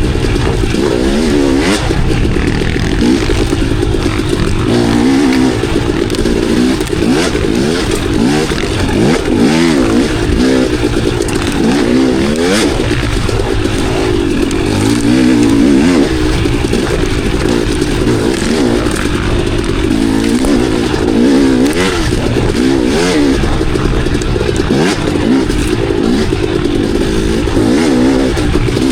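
Enduro dirt bike engine revving up and down continuously as it is ridden on a trail, with scattered sharp clicks and knocks.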